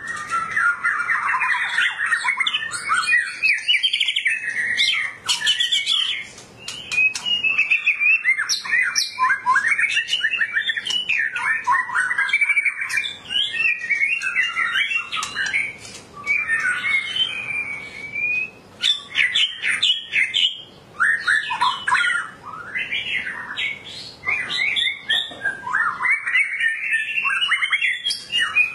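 White-rumped shama (murai batu, long-tailed Medan type) singing almost nonstop: a fast, varied run of whistled phrases, chattering notes and trills, broken only by short pauses every few seconds.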